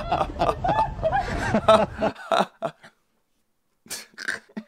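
A man chuckling and laughing over voices and street noise, which stop abruptly about two seconds in; after a short silence, a few brief chuckles.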